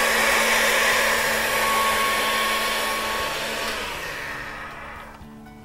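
Motorised pasta machine running with a steady whirring hum as a strip of gum paste is rolled through its rollers. About three and a half seconds in, the motor slows and the sound falls in pitch and winds down.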